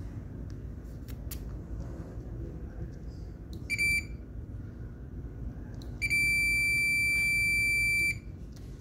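An electronic beeper gives a short high-pitched beep about three and a half seconds in, then one long steady beep of about two seconds near the end. A steady low rumble runs underneath.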